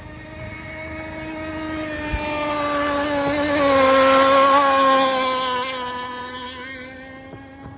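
A radio-controlled speedboat running past on the water: its motor's steady tone grows louder to a peak about four seconds in, drops slightly in pitch as it goes by, then fades away.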